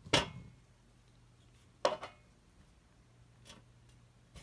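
Two sharp knocks of hard objects, about 0.2 s and 1.9 s in, and a fainter one a little after 3.5 s, over a faint steady low hum.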